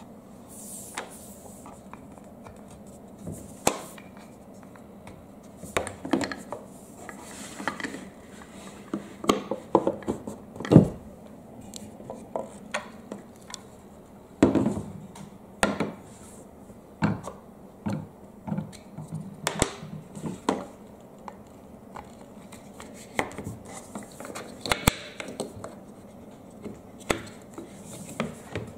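Wooden marble-run pieces being handled and fitted together: irregular knocks and clacks of wooden blocks against each other, with a few brief rubbing and sliding sounds as parts are pushed into place.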